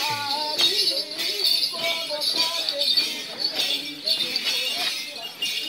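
Voices singing the ohaa chant of the Lamaholot sole circle dance, the melody gliding between held notes. Over it runs a rhythmic jingling beat about twice a second.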